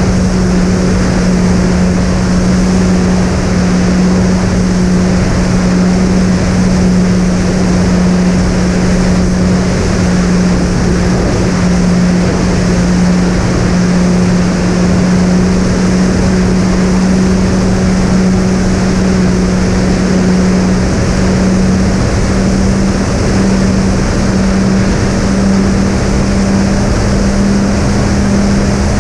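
Twin SunnySky 2212 980 kV brushless motors with three-blade 7x4 props running at a steady cruise setting, a constant loud hum under a broad rush of air.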